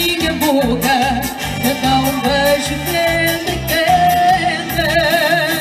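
Live festival dance music from a duo: a held, wavering melody line with vibrato over a steady, even bass beat.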